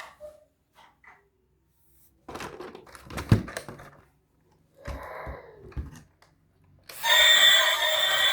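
Plastic toy vehicles and their packaging being handled, with rustling, light knocks and one sharp thunk. About seven seconds in, a loud electronic tune starts.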